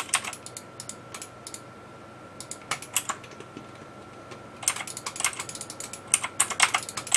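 Typing on a computer keyboard, entering CAD commands: short bursts of keystrokes, a pause in the middle, then a quick run of keys near the end. A faint steady high whine runs underneath.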